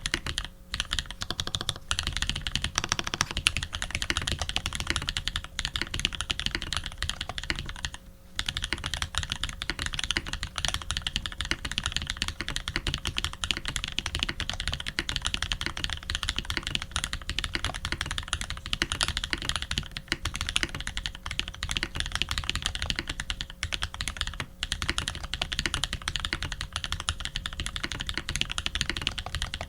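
Fast, continuous typing on a Tx87v2 custom mechanical keyboard with lubed Holy Panda tactile switches, a brass plate and PBT keycaps. It makes a dense run of keystroke clacks, with short pauses about half a second in and again about eight seconds in.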